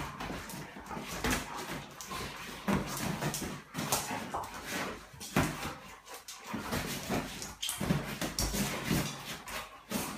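Dobermanns play-fighting on a padded dog bed: scuffling and snapping with short dog vocal noises, in quick irregular bursts.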